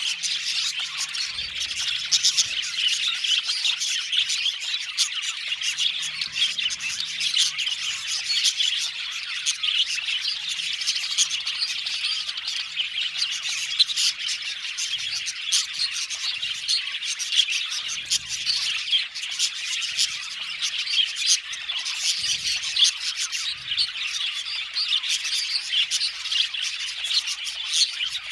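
A flock of budgerigars chattering, with many overlapping chirps, warbles and squawks going on without a break.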